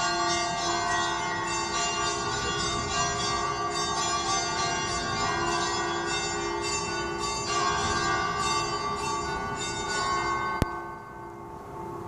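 Church bells pealing at midnight to ring in Easter: many rapid, overlapping strokes with long ringing tones. About ten and a half seconds in the striking stops with a sharp click, and the bells' hum fades away.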